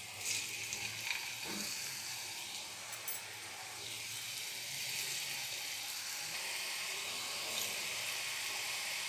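Rice-flour chegodi rings sizzling as they deep-fry in hot oil in a pan. There are a few soft knocks in the first three seconds as pieces go in, and the sizzle grows a little louder from about four seconds in.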